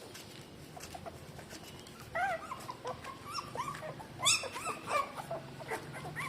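Newborn puppies whimpering and squeaking while nursing: a run of short squeaks that rise and fall in pitch, starting about two seconds in, with the loudest about four seconds in.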